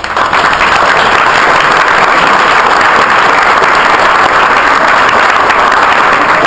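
Loud audience applause that breaks out all at once and holds steady.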